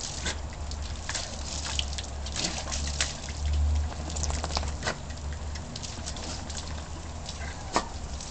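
A Cairn terrier playing in water: irregular splashing and pattering, over a steady low rumble that swells briefly about three and a half seconds in.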